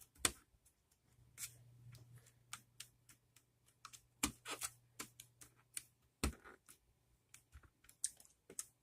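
Hard plastic parts of a membrane keyboard clicking and tapping as they are pressed down onto their locating pegs: a run of irregular, faint sharp clicks, the loudest about a third of a second in, at about four seconds and at about six seconds.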